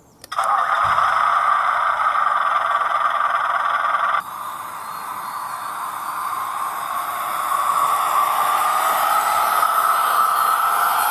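Model railcar's TBS Mini RC sound module playing its IFA engine sound through a small speaker, heard as a steady, hiss-like drone. It drops suddenly about four seconds in, then grows gradually louder.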